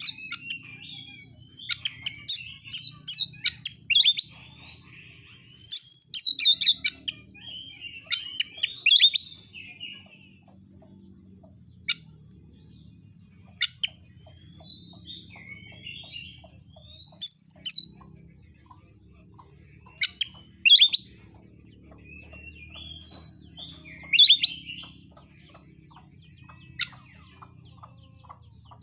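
Oriental magpie-robin (kacer) singing in the aggressive 'narung' style: loud, sharp whistled phrases and chirps in separate bursts with short pauses between them.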